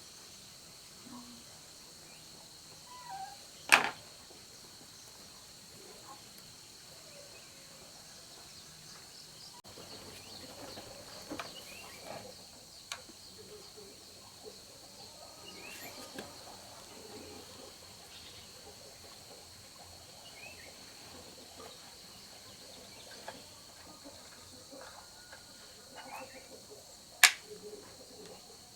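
A steady high insect trill, like crickets, under scattered small clicks and taps. Two sharp, loud clicks stand out, one about four seconds in and one near the end.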